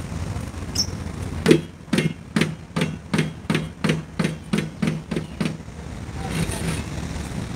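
A run of about eleven sharp, evenly spaced knocks, between two and three a second, over a steady low background rumble.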